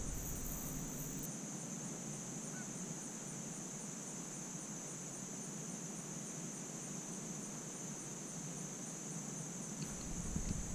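Steady high-pitched insect chorus, crickets or katydids, with faint outdoor background.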